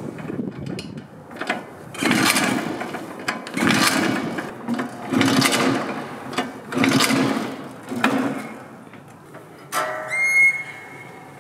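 A Vespa PK50 XL's 50cc two-stroke engine is kick-started five times, one to two seconds apart; each kick turns it over with a short churning rush, but it does not start. About ten seconds in there is a brief high squeal.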